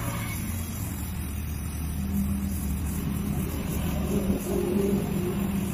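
A motor-vehicle engine running steadily nearby, a low hum that grows stronger about two seconds in, over the hiss of a gas-welding torch flame.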